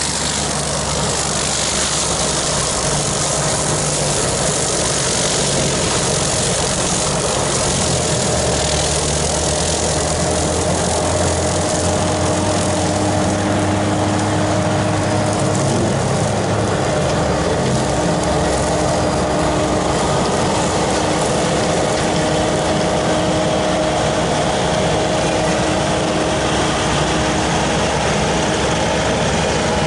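Bobcat compact track loader's diesel engine running steadily while its brush cutter attachment mows tall weeds and grass, with a steady whine above the engine noise from about eight seconds in.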